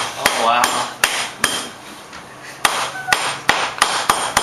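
Kitchen knife chopping on a plastic cutting board: about ten sharp knocks in an uneven rhythm, with a pause of about a second midway.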